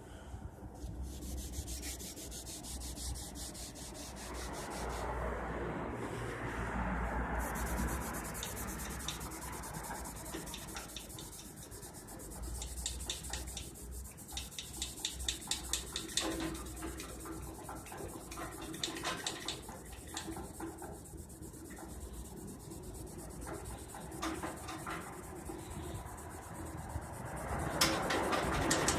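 Chromed steel handle being hand-polished with metal polish, rubbed in quick, repeated back-and-forth strokes.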